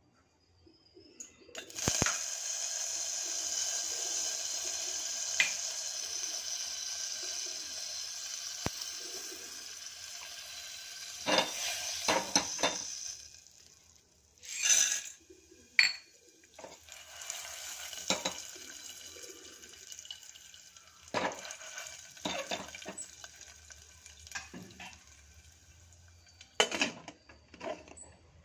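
Butter and coconut oil sizzling steadily in a hot aluminium pressure-cooker pan, the sizzle starting about two seconds in. Several sharp metal clanks of the pan and its lid being handled.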